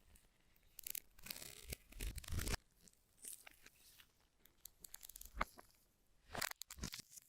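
Packaging being handled, crinkling and crunching in irregular bursts. The longest burst lasts about a second and a half near the start, followed by shorter ones.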